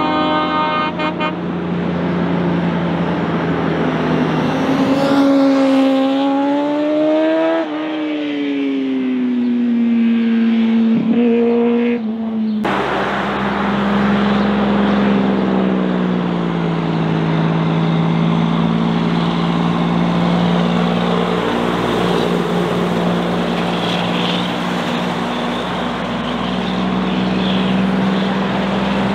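Heavy diesel truck engines working on a steep, winding road. The engine note climbs for a few seconds, then falls. About 12 seconds in, a sudden cut brings in another truck whose engine holds a steadier note.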